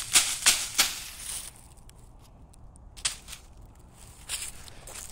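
Footsteps crunching through dry fallen leaves: a quick run of crisp crunches in the first second and a half, then quieter, with a few scattered crackles and another soft crunch or two near the end.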